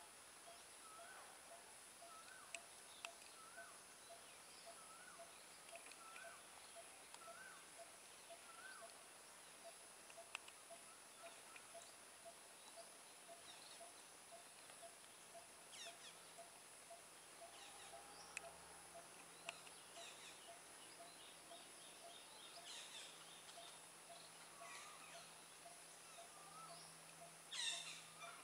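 Faint calls of several birds. A short up-and-down call repeats about once a second for the first nine seconds over a steady string of soft lower notes. Scattered chirps follow, then a louder burst of calls near the end.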